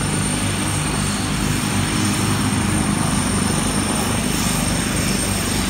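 Turbine aircraft engines running close by: a steady high turbine whine over a low, pulsing propeller and rotor drone.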